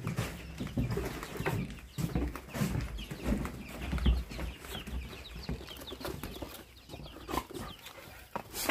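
Chickens clucking and chirping over and over inside a covered cardboard box as it is carried, with low rumbling and bumps from the box being handled and a sharp knock near the end.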